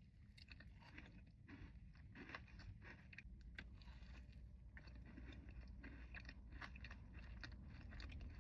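A person biting and chewing a Crumbl cookie close to the microphone, with many short crackling clicks of mouth sounds.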